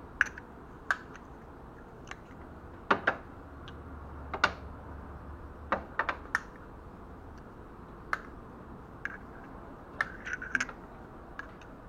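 Irregular light clicks and taps of small metal parts being handled as hydraulic valve lifters (tappets) are swapped in an engine's cylinder head, with a few louder knocks about three seconds in and again around six and ten seconds in.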